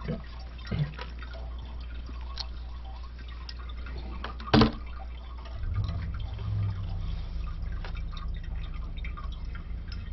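Water dripping and splashing in a toilet tank as a hand works inside it, with a sharp knock about four and a half seconds in and a low steady hum throughout.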